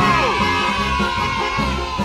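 Background music with a steady beat and a long held high note over it that stops near the end.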